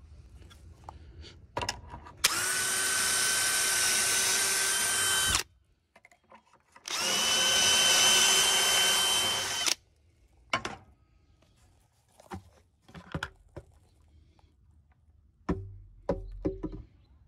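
Drill running a pocket-hole bit through a Kreg jig into a pine 2x4, two steady runs of about three seconds each with a constant whine. Then a few scattered knocks and clatter as the drilled board is handled.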